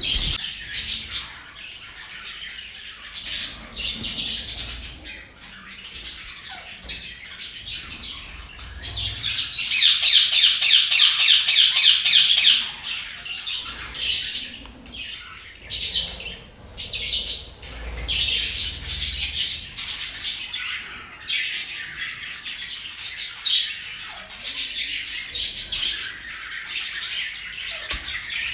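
Pet budgies and a parrot chirping and squawking nonstop. About ten seconds in comes a loud, quick run of repeated squawks lasting a couple of seconds, then the busy chatter goes on.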